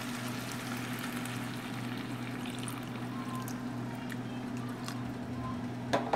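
Water poured from a plastic cup into a hot pan of frying chicken, a steady hiss of liquid hitting hot oil. A sharp knock near the end.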